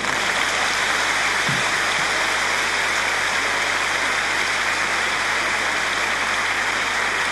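A large audience applauding steadily, many hands clapping in an even, unbroken clatter.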